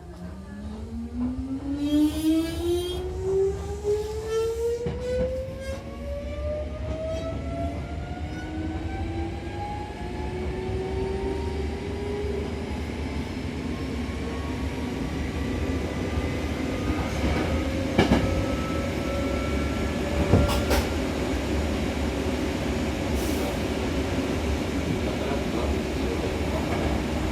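Hankyu Takarazuka Line electric train pulling away: its traction motor whine rises steadily in pitch over the first dozen seconds as it accelerates, then gives way to steady running noise, with two sharp knocks about two-thirds of the way through.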